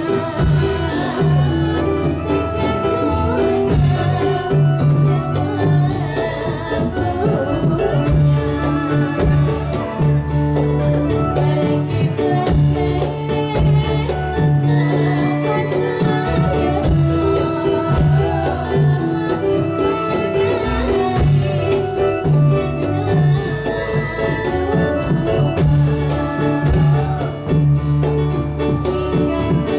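Dolalak music, the Central Javanese folk dance accompaniment: a busy steady beat of drums and jingling tambourine-like percussion under held instrumental notes, with singing.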